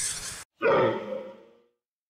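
A burst of hiss cuts off sharply, then a single loud animal call starts suddenly about half a second in and fades away over about a second.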